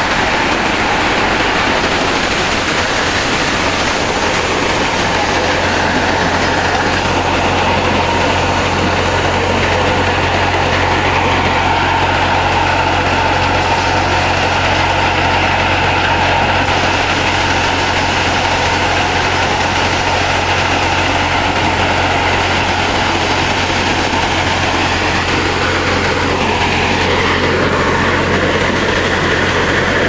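Malwa maize thresher running steadily while shelling corn cobs: a constant low hum under a dense, even mechanical noise.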